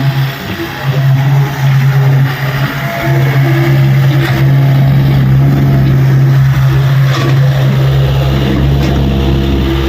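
Tata Hitachi EX70 excavator's diesel engine running steadily under load as it works, with its low hum dipping briefly near the start and again about three seconds in.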